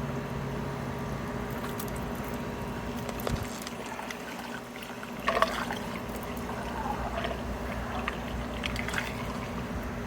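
Vinegar being poured from a jug into a funnel and running down a hose into an RV water heater tank, a steady pouring and trickling. A brief knock sounds about five seconds in.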